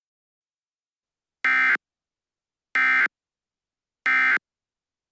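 Emergency Alert System end-of-message data tones: three short, identical digital buzzes about 1.3 seconds apart, signalling the end of the alert message.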